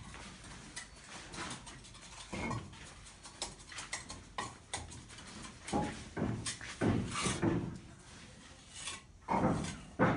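An animal calling several times in short, irregular cries, the strongest cries coming in the second half.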